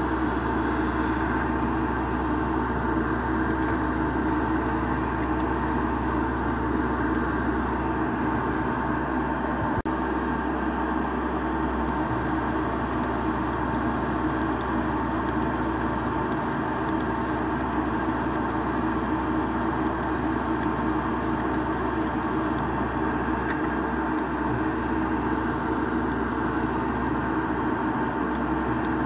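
Steady hum of a small electric motor running throughout, with the hiss of an airbrush spraying a fade coat of paint.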